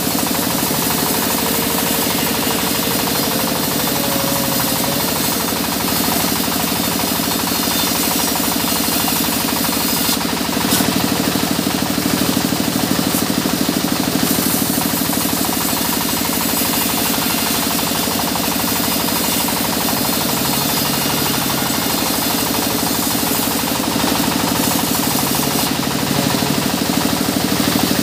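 Sawmill band saw ripping a mahogany log lengthwise into a board: a loud, steady machine noise with a low hum and a fast, even pulsing that holds the whole time.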